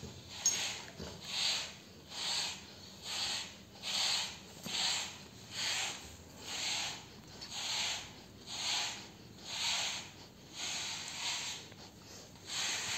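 Grooming brush raked through a Labrador's short coat in steady scratchy strokes, about one a second, scraping out loose shedding hair.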